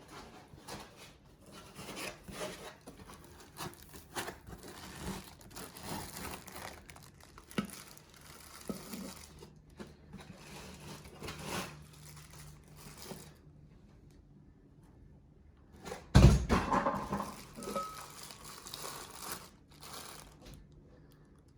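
Packaging being handled during an unboxing: irregular rustling, crinkling and scraping with small knocks. One loud thump comes about 16 seconds in.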